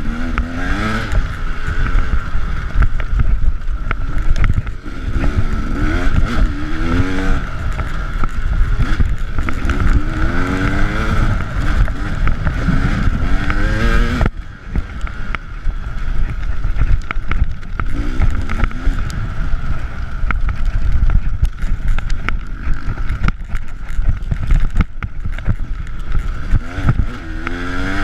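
KTM 300 EXC two-stroke enduro motorcycle engine revving up and down over and over as the bike is ridden hard on a rough trail, with heavy wind and bump noise on the bike-mounted camera. The sound cuts abruptly to a new stretch of riding about halfway through.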